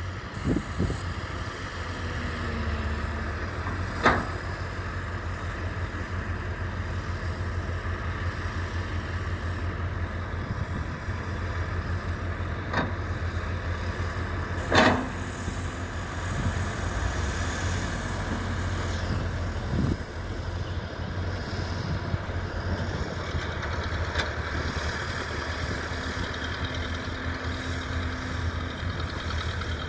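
Diesel engines of a hydraulic excavator and crawler bulldozers running steadily as they work in soft earth fill. A handful of sharp knocks break through the engine drone.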